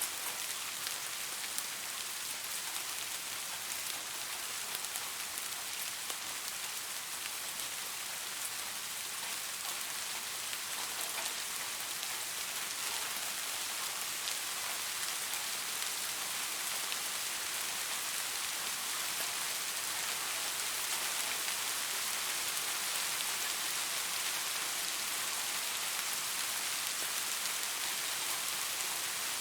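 Steady rain falling on leaves, a dense even hiss flecked with fine drop ticks.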